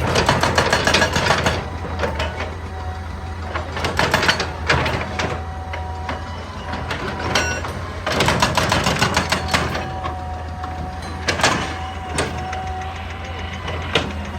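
Excavator engine running steadily under load, with repeated bursts of rapid knocking and rattling from the machine working rock, and a faint hydraulic whine.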